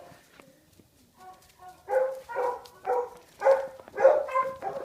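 A dog barking repeatedly, about two barks a second, starting about two seconds in after a few faint yips.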